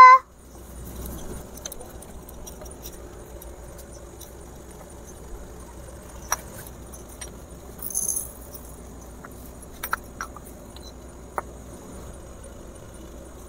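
Small terracotta pots and dishes being handled and set down: a few light clicks and taps, with a brief high rustle about eight seconds in, over a steady low hum.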